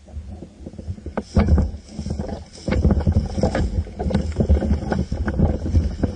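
Irregular rustling, knocking and rumbling handling noise picked up by a camera mounted on an airsoft M4 while it is carried, with wind buffeting the microphone.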